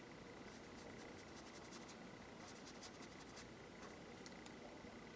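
Faint scratchy strokes of a paintbrush on paper, coming in short clusters as gouache is brushed out.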